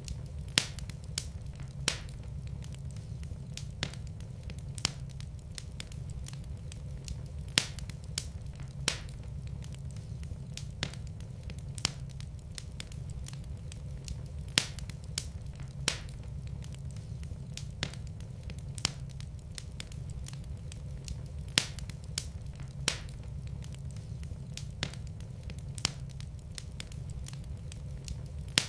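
Wood fire in a fireplace crackling: irregular sharp pops and snaps, a few of them loud, over a steady low rumble of the flames.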